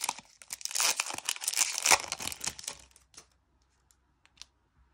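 Foil trading-card booster pack being torn open and crinkled for about the first three seconds, then a few faint clicks as the cards are handled.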